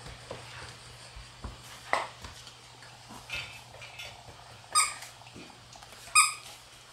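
Shiba Inu puppies giving a few short, high squeaks while play-fighting, the two loudest in the second half, with small scuffling sounds in between.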